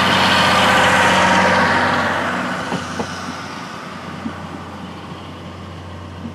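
Train of 12/14 series passenger coaches rolling away along the track. Its wheel-on-rail noise is loud for about two seconds, then fades steadily as it recedes, with a few faint clicks.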